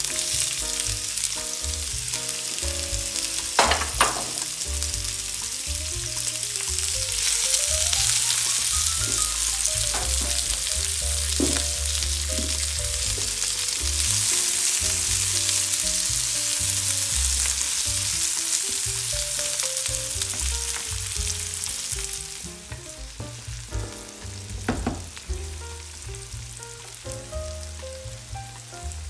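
Sliced onion sizzling in hot oil in a nonstick frying pan as it is stirred with a wooden spatula, with a couple of sharp knocks. The sizzle starts as the onion hits the oil, grows stronger, then dies down about 22 seconds in as the onion softens.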